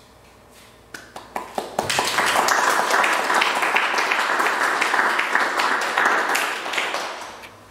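Audience applauding: a few scattered claps at first, then steady clapping for about five seconds that dies away near the end.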